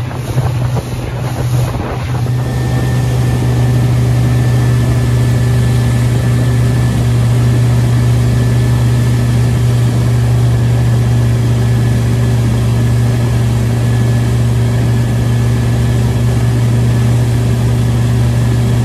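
Suzuki 80 hp four-stroke outboard motor running at steady cruising speed under a boat at sea, a steady low drone with a fainter whine above it. Wind buffets the microphone. About two seconds in the sound gets louder, then holds steady.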